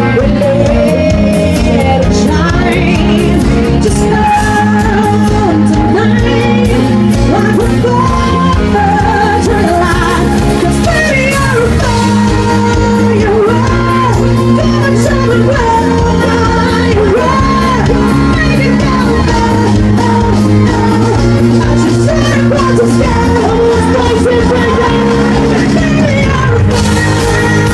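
Pop song playing, with a voice singing a melody over a steady beat.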